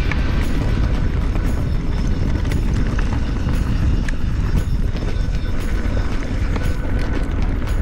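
Full-suspension mountain bike ridden fast over rough, rocky trail: a steady heavy rumble of wind and ride noise on the mic, with scattered clicks and clatter from the bike.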